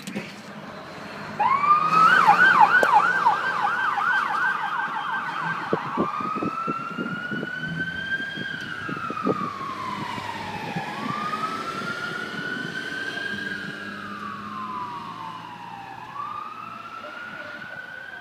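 Rescue truck's siren starts up about a second and a half in with a fast yelp, then switches to a slow rising and falling wail. It grows fainter as the truck moves away.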